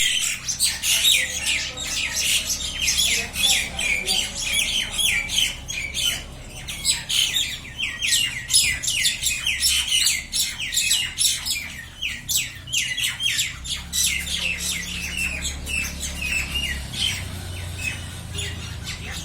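Mynas squawking as they fight: a rapid run of harsh, scratchy calls, several a second, that thins out in the last few seconds while a low hum rises underneath.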